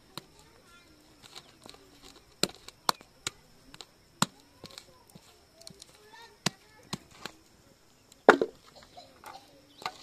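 Chopping: about eight sharp, irregular knocks with uneven pauses between them, the loudest near the end.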